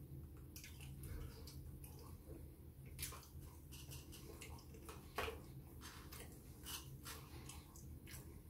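Close wet chewing and lip-smacking of someone eating chips dipped in ketchup: a run of small irregular mouth clicks, with sharper smacks about three seconds in and again about five seconds in.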